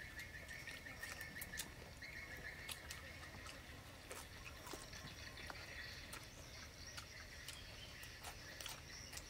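Soft clicks and smacks of people eating fried chicken legs by hand. A high, rapid trill from a small creature runs through the first three seconds and is fainter later.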